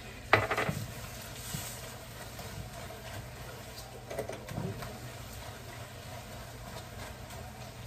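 Spatula stirring and scraping a thick, steaming lauki barfi mixture in a wok as it is cooked down dry, with a sharp clatter about a third of a second in and a few lighter knocks about four seconds in.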